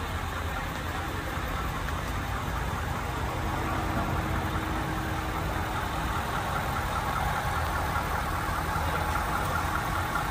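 Ford F-250 Super Duty truck engine idling steadily with an even, rapid ticking that becomes plainer in the second half.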